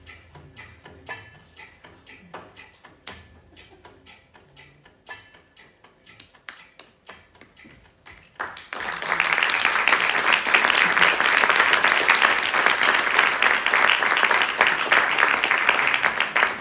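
Quiet closing music: a steady ticking rhythm of light percussive clicks. About eight seconds in, an audience breaks into loud, sustained applause.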